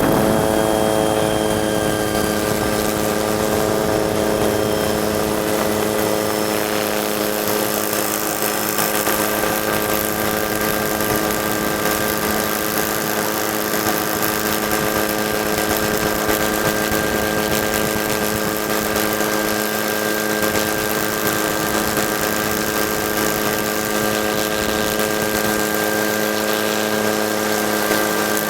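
The camera helicopter's own engine and rotor noise heard from on board: a steady drone with a set of unchanging whining tones.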